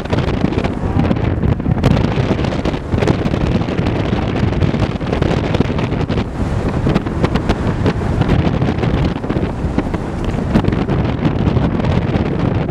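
Heavy wind buffeting the microphone, with a rally car's engine running underneath it.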